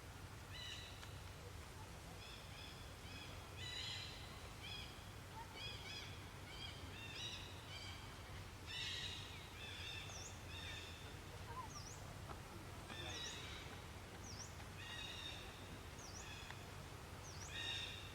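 Many short, high-pitched animal calls in quick, overlapping series, joined in the second half by quick up-and-down chirps, over a steady low hum.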